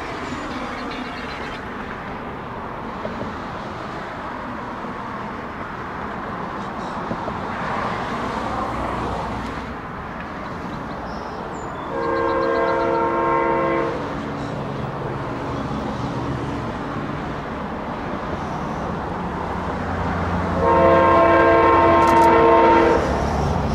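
Amtrak GE P42DC locomotive's Nathan K5LA five-chime air horn sounding two long blasts as the train approaches, one about halfway through and a longer one near the end. These are grade-crossing warning blasts. A low rumble from the oncoming train builds under the second blast.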